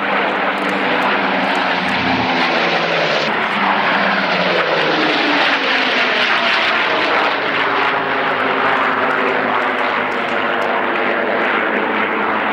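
A formation of four World War II piston-engined propeller fighters flies past with loud engine drone. The engines' pitch drops as the formation passes, about three to five seconds in.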